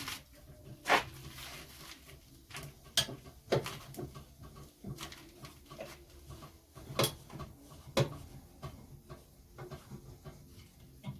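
Scattered sharp metallic clanks and knocks from hand tools being handled while a car's rear wheel is taken off, about half a dozen separate hits with the loudest about a second in.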